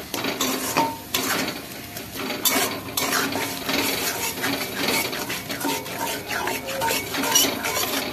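A utensil stirring and scraping around a hot metal kadai in irregular strokes, with onion, ginger, garlic and chilli pastes frying in oil with salt and turmeric: the masala being fried for the chicken.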